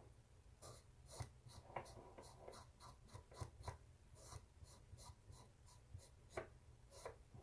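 Faint scratching of a felt-tip marker stroked back and forth over a steel flat bar, a few quick strokes a second, coating the metal black for layout.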